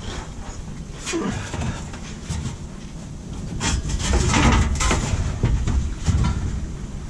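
Handling noises from a partly lowered fuel tank on a 2003 Chevy Suburban as it is pushed and tugged by hand from underneath: rubbing, scraping and dull knocks against its fittings while it is still caught on a hose. They come in uneven clusters, loudest about four to five seconds in.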